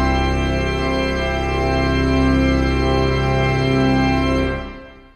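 Pipe organ playing sustained full chords over a deep bass, fading away about four and a half seconds in.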